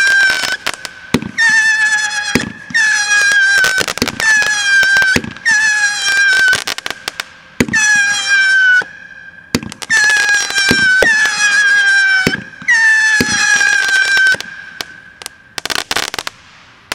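World Class Fireworks Huge Saturn Missile 20-shot battery firing: a rapid string of whistling missiles, each a high whistle that falls slightly in pitch over about a second, one after another every second or so, mixed with sharp pops and bangs. A quick cluster of pops comes near the end before the volley stops.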